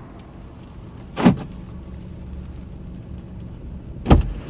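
Car door opening with a sharp click about a second in, then shutting with a heavier thud near the end, heard from inside the car over a steady low hum in the cabin.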